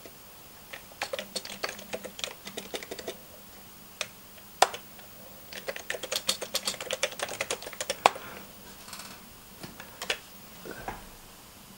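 Computer keyboard keys being typed in irregular bursts of clicks, with the densest run about six to eight seconds in and a few single key presses between.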